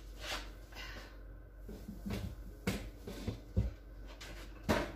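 Scattered light knocks and clicks of a covered bowl being put away in a refrigerator and the door handled, over a low steady hum.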